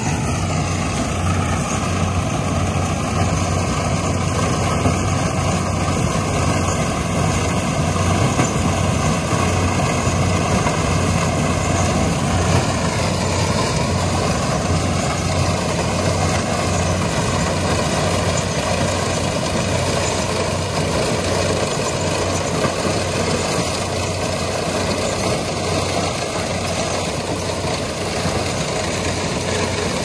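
Kubota DC-70 Plus combine harvester's diesel engine and machinery running steadily while harvesting corn, a continuous low hum.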